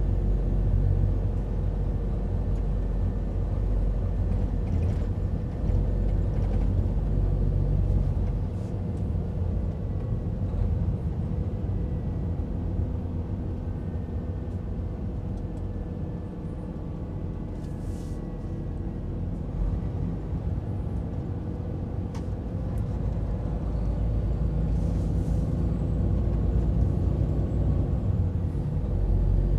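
Scania timber truck's diesel engine running under way, a steady low drone that eases off through the middle and builds again in the last few seconds.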